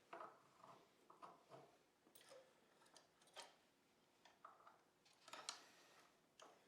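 Faint, scattered metal clicks and taps, about one a second, of a motorcycle foot peg and its pin being handled and fitted to the peg mount.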